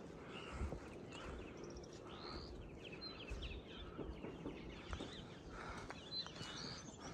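Faint outdoor ambience with scattered small bird chirps and a few soft knocks.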